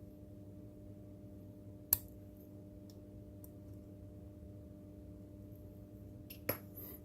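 Small parts of a robot kit being handled: a sharp click about two seconds in, a few faint ticks, and another click near the end, over a steady low hum.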